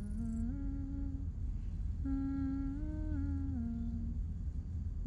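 A voice humming a slow melody of held notes that step up and down, in two phrases with a pause between, over a steady low drone.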